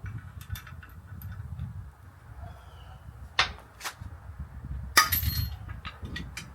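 Metal tools clinking, with two sharp metallic strikes about three and a half and five seconds in, the second the loudest and ringing briefly, over a low rumble of wind on the microphone.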